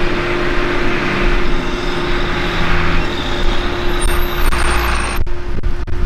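John Deere tractor engine running as it pulls a grain cart, over a steady mechanical hum. About five seconds in the engine noise drops off suddenly while the hum carries on.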